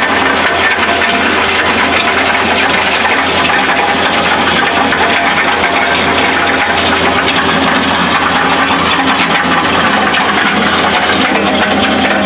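Farm tractor's engine running steadily at a constant speed.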